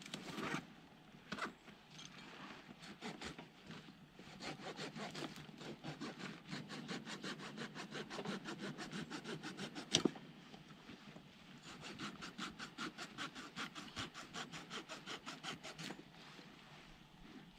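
Quick, rhythmic cutting strokes, about four or five a second, in two long runs, with a single sharp knock between them.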